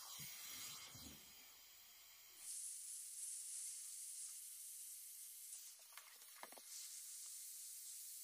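Faint steady hiss of a small gas torch flame, starting about two and a half seconds in. It dips for a moment past the middle, with a couple of light knocks, then carries on.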